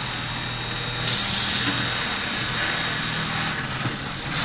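Industrial automatic pocket sewing machine (Sipi, Italy) running with a steady hum, and a sharp hiss of compressed air about a second in that lasts about half a second.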